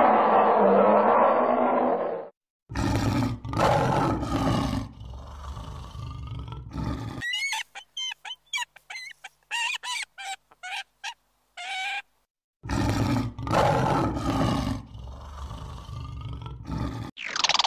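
Tiger roaring and growling twice, starting about three seconds in and again about thirteen seconds in. Between the two roars comes a bald eagle's run of short, high, thin chattering calls. It opens with about two seconds of dense, rough animal noise that cuts off.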